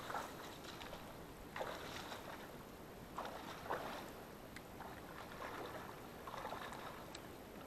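Footsteps wading through shallow marsh water, a soft slosh and splash with each step every second or two.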